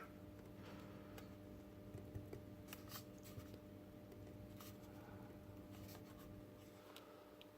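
Near silence: a steady low hum with a few faint, sharp clicks and rubs of small plastic parts being handled, as the robot head is worked onto its neck servo shaft.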